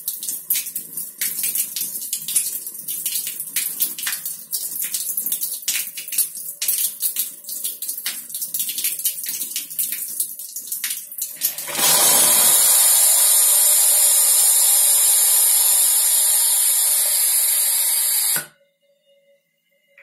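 Rinse water driven by CO2 pressure jets out of a beer keg coupler and splashes onto a tiled floor. About twelve seconds in, the water runs out and CO2 gas blows through the coupler with a loud, steady hiss that cuts off suddenly about six seconds later.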